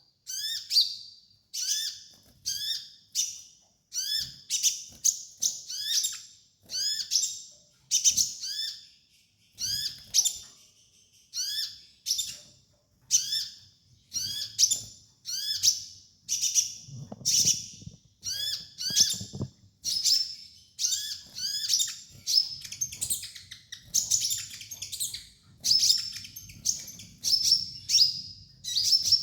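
Kolibri ninja sunbird singing a fast, high chirping song: short phrases of quick downward-sweeping notes, repeated one to two times a second.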